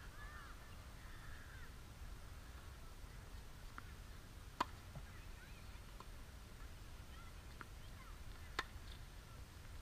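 Two sharp tennis ball strikes off a racket about four seconds apart, with fainter ticks of ball bounces and distant hits between them, over a low outdoor rumble.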